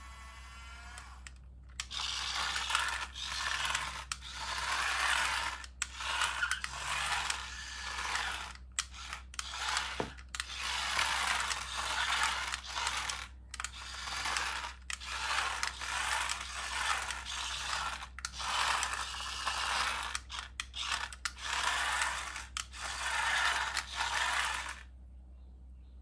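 Small electric motors and plastic gearboxes of a remote-control transforming tank-jet toy whirring and grinding in repeated bursts of one to two seconds, stopping and starting with short gaps as it drives and folds its wings. A warbling electronic tone plays for about the first second.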